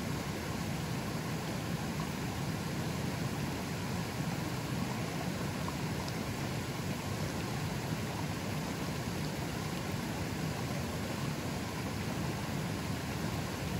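River water flowing fairly strongly: a steady, unbroken rushing that is fullest in its low, deep part.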